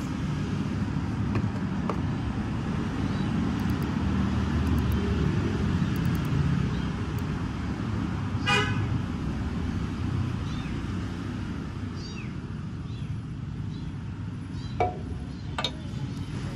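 Steady low background rumble of road traffic, with a short horn toot about eight seconds in and two sharp clicks near the end.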